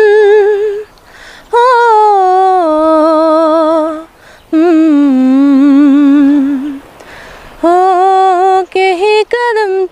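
A young female voice singing unaccompanied: slow, drawn-out melodic phrases with vibrato and ornaments, with short breaths between them, about a second, four and seven seconds in.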